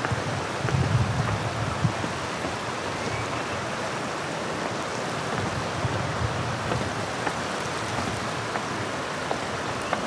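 Steady rush of water, even throughout, with a few faint ticks. Some low wind rumble on the microphone in the first two seconds.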